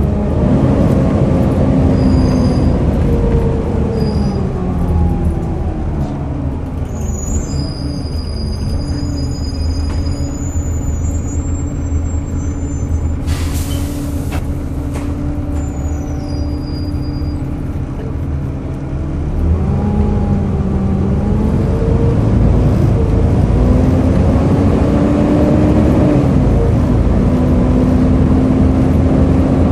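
Volvo B7TL double-decker bus engine heard from on board: it slows down and falls in pitch, idles steadily for about ten seconds, then revs and climbs in pitch as the bus pulls away. A short hiss of air comes about halfway through.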